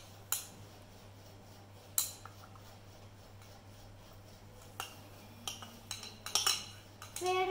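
Kitchen utensils clinking against dishes: a few sharp, separate clinks, the loudest near the start and about two seconds in, with a quicker cluster around six seconds. A faint steady low hum runs underneath.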